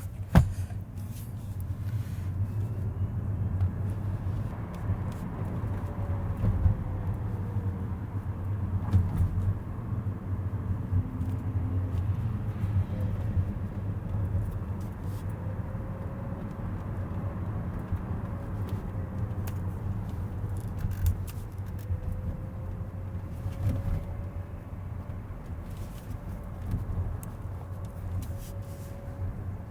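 Road and tyre rumble inside a Tesla electric car's cabin while driving, steady and low, with a faint whine that rises and falls in pitch. There are a few light clicks, and a sharp click just after the start.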